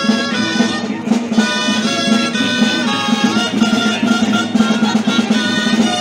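Live traditional street-band music for a dance of Catalan giants: wind instruments play a lively melody over a steady low held note, without pause.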